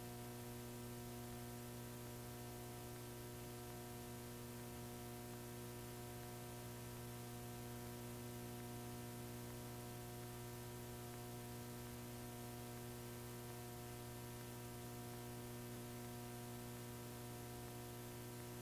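Faint steady electrical hum with hiss, several unchanging tones over a soft noise: the noise floor of a VHS tape transfer carrying no programme sound.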